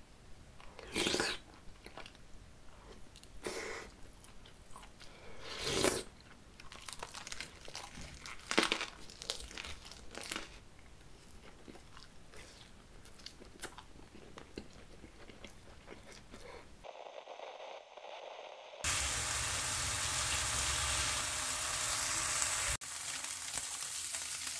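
Close-miked eating: bites and chewing, with a handful of louder crunchy bites spread over the first seventeen seconds or so. After a short break, slices of Spam sizzle steadily in a frying pan.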